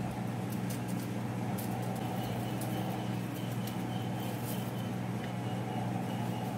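A steady low hum, with faint light clicks and scrapes of a small knife peeling the skin off green bananas.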